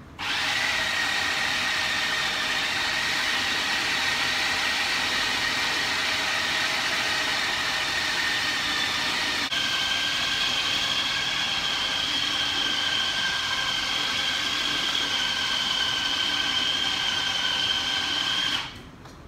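Electric food processor running steadily as it chops raw minced meat. Its motor whine jumps higher in pitch about halfway through, and it cuts off shortly before the end.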